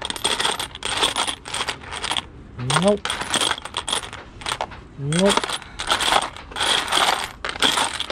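Metal bolts and screws clinking and rattling against each other and the sides of a plastic storage box as a hand rummages through them: a dense run of small metallic clicks.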